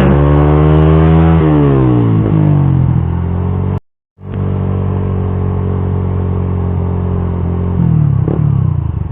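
Suzuki GSX-R150's single-cylinder engine through an R9 Misano aftermarket exhaust, ridden hard: the note climbs for about a second and a half, then falls as the throttle closes. After a brief gap it holds steady, then drops off again near the end.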